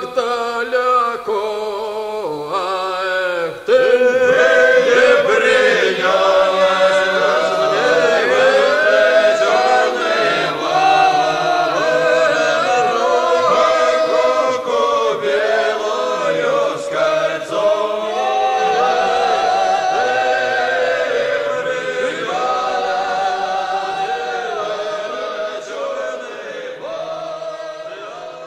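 Choir singing as background music, growing fuller about four seconds in and fading out near the end.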